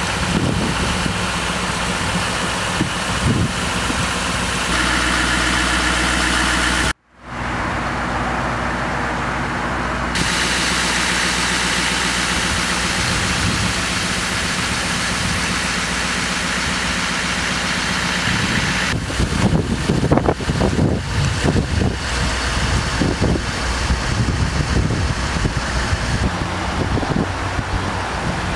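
A heavy-duty pickup tow truck's engine idling steadily. It cuts out for a moment about seven seconds in, and wind gusts on the microphone in the last part.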